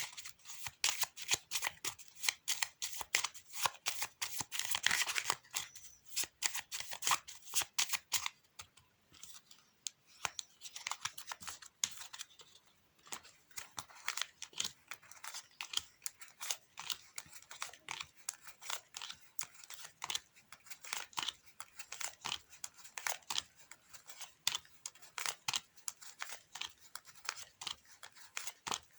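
Playing cards being shuffled and handled: a dense run of crisp flicks and clicks for about the first eight seconds, then sparser single clicks.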